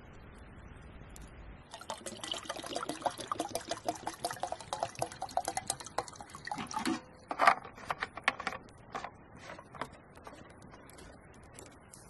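Water pouring from a plastic water canister into a metal kettle, starting about two seconds in and running for about five seconds. Then a few sharp knocks and clunks, the loudest about seven and a half seconds in.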